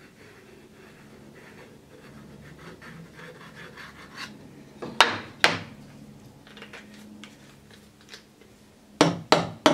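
Faint scratchy rubbing of a CA glue bottle's nozzle being run along masking tape on a strip of wood, then sharp wooden knocks as the pieces are handled and set down on the wooden bench: two knocks about five seconds in and three quick ones near the end.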